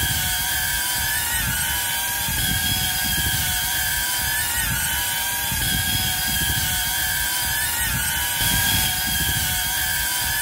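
DJI Avata 2 FPV drone's ducted propellers whining steadily in flight, with a pitch that wavers slightly as the throttle changes, over a low rumble.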